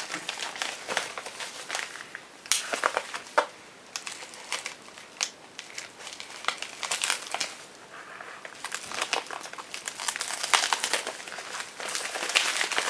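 Packing material crinkling and crackling in irregular rustles and clicks as a knife is worked out of its shipping package.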